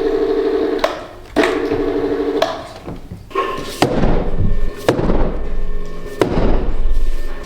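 A series of heavy knocks or thuds at irregular intervals. The first two are each followed by about a second of steady ringing hum.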